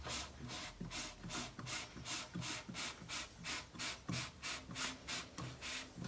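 Paper towel rubbing sealer onto a walnut pencil blank on the lathe, in quick, even back-and-forth strokes about two or three times a second.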